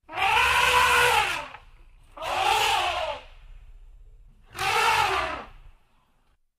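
Elephant calf trumpeting three times, each call about a second long, blaring and rising then falling in pitch.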